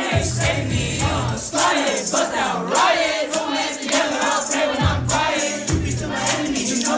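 Music with voices singing over a bass line.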